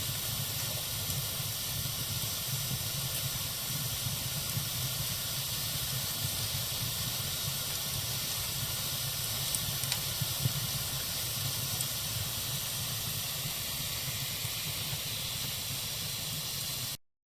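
Campfire burning: a steady hiss with a few faint crackles about halfway through, cutting off abruptly near the end.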